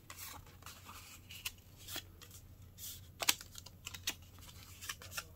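Cardstock being handled and folded by hand: soft paper rustles and scattered small clicks, with one sharper click a little past the middle.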